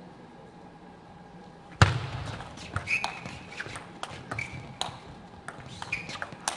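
A table tennis rally: the ball clicking sharply and repeatedly off the paddles and the table, with a few short squeaks from the players' shoes on the court floor. The first couple of seconds are only faint hall ambience, and the rally sound starts abruptly.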